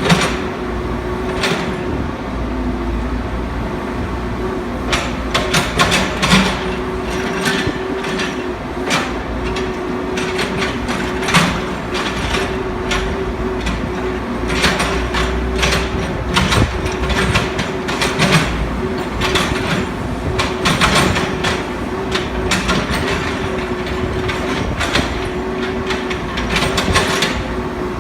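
Excavator working demolition rubble: its engine runs steadily with a constant whine, while the bucket and debris give frequent irregular clanks and knocks.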